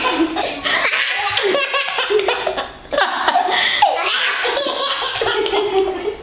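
A baby and a child laughing hard in long, high-pitched bouts, with a short break about three seconds in.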